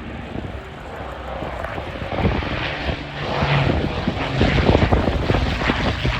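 Aircraft engine noise from a plane flying past, growing louder from about two seconds in.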